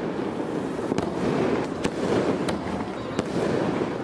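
Fireworks going off: a continuous dense crackling with sharp, louder cracks standing out every second or so.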